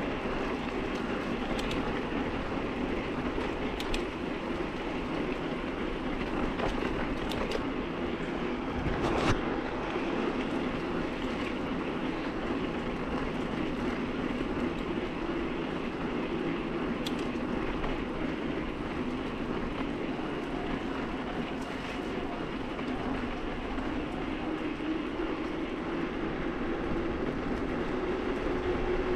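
Mountain bike rolling over rough singletrack: a steady rumble of tyres on dirt and stones with the bike's frame and chain rattling, and scattered small knocks. One sharper knock comes about nine seconds in.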